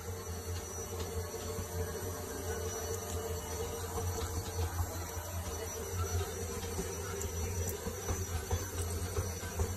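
Small fingers picking the cracked shell off a hard-boiled egg, giving a few faint ticks and crackles. Under it runs a steady low hum and hiss.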